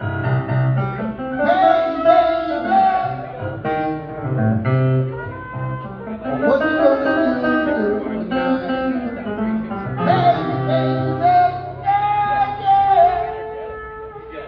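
Live band playing at a sound check, with bass guitar holding low notes under guitar and a wavering melodic line.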